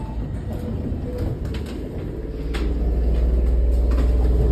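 Interior running sound of a Nagano Electric Railway 8500 series (ex-Tokyu 8500) electric train as it sets off. A low hum grows louder about halfway through, with a few clicks and knocks before it.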